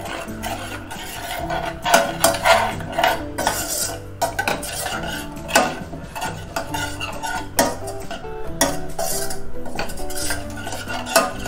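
A steel spoon stirring a thin mix of coconut milk and spice powders in a stainless-steel pot, clinking and scraping against the pot's sides and bottom in irregular strokes.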